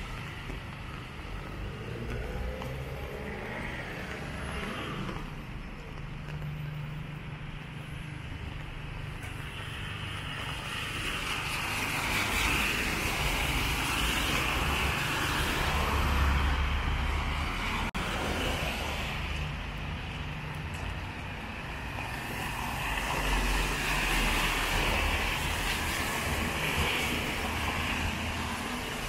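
Cars passing on a rain-wet street, their tyres hissing on the wet road over engine rumble. The loudest pass-bys come in the middle and again toward the end.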